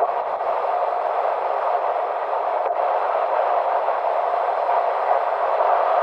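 Steady road and tyre noise of a car driving at expressway speed, heard from inside the cabin.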